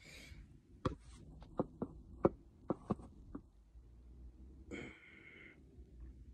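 Handling noise from a phone being carried and repositioned: about eight sharp clicks and knocks in quick succession, then a brief rustling scrape near the end.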